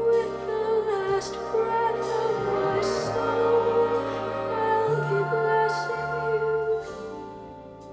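Slow music with a singing voice holding wavering notes over steady bass notes, easing off near the end.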